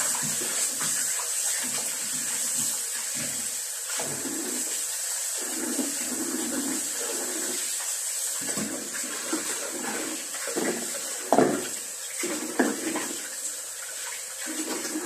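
Kitchen tap running into a sink while raw chicken pieces are rinsed by hand, the water splashing unevenly over the meat. A few sharp clatters come about three-quarters of the way through.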